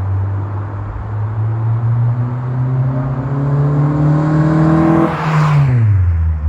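2004 Acura TSX's four-cylinder engine through an aftermarket Tsudo SP2 cat-back exhaust, accelerating toward the microphone with a deep exhaust note rising steadily in pitch. About five seconds in, the car passes close by and the pitch drops sharply as it goes past.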